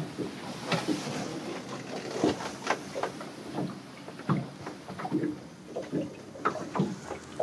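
Irregular knocks, clicks and light thumps of someone moving about a small boat cabin, over a steady low rumble.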